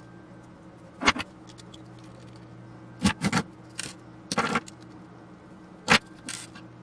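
Small metal parts and tools clinking and clattering as the control box's gear assembly is handled during disassembly, in about six short bursts.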